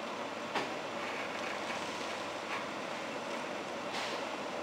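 Excavator running steadily while demolishing a concrete viaduct, with a few sharp knocks from its attachment or the concrete, the loudest about half a second in and another near the end.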